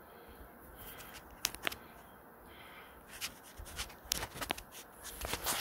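Footsteps crunching on packed snow as someone walks, a scatter of short crackling crunches that get louder and more frequent near the end.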